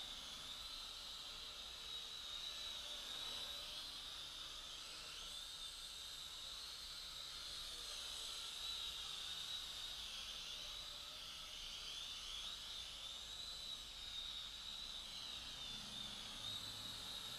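Micro quadcopter's motors whining faintly: a high-pitched whine that wavers up and down in pitch as the throttle changes, over a steady hiss.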